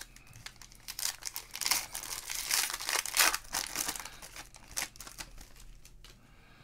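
Foil wrapper of a football trading-card pack crinkling as it is torn open and the cards are pulled out, loudest in the middle and then dying down to a soft rustle with one sharp click.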